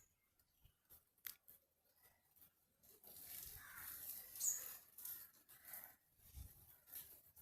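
Faint, scattered high chirps of small garden birds: a quick falling chirp about a second in and a sharper one about halfway through. A soft rustle runs under the middle, and there is a low bump near the end.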